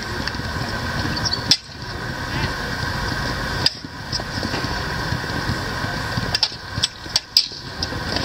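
Combat lightsaber blades striking each other in sharp clacks: one about a second and a half in, one near four seconds, and several in quick succession near the end, over a steady hum.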